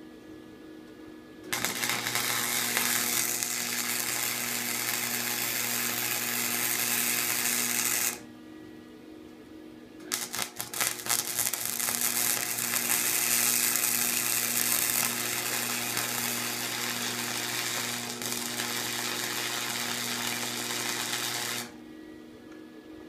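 Electric arc welder laying two welds, a steady crackling hiss over a low electrical hum, the first about six seconds long and the second about eleven. The second starts with a few stuttering pops as the arc strikes, then settles.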